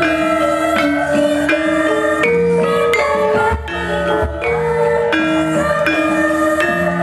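Javanese gamelan ensemble playing: bronze-keyed metallophones struck with mallets give a steady melody of ringing, held notes that step from pitch to pitch, with a few low strokes underneath.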